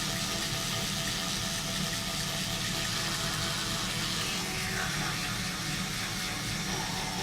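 Electric toothbrush running with a steady low buzz and hiss; a little past halfway the hiss briefly sweeps down in pitch.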